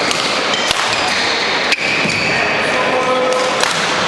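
Badminton rally: three sharp racket strikes on the shuttlecock, a second or two apart, with brief squeaks of court shoes between the later hits.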